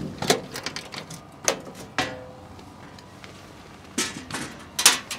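Clicks and metal clatter as the latches of a Bandit 12XPC chipper's hinged steel engine-access panel are undone and the panel is swung open. The clacks come in scattered groups, the loudest near the end.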